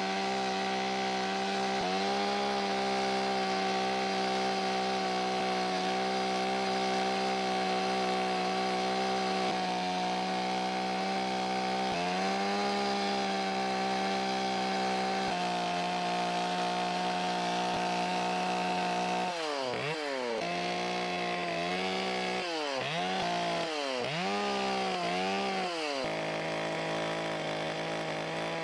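Chainsaw running steadily while carving wood. Between about 20 and 26 seconds in, the engine speed drops and recovers several times in quick swoops, then it settles back to a steady pitch.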